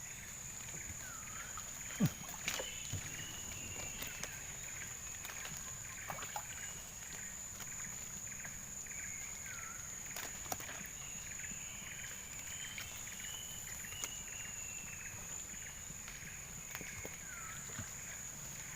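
Outdoor river ambience: a steady high-pitched insect drone, with short swooping animal calls every few seconds and a few sharp knocks, the loudest about two seconds in.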